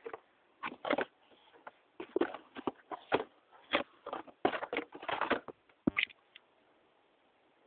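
Packaging being handled and opened: irregular clusters of rustles, crinkles and clicks that stop about six seconds in.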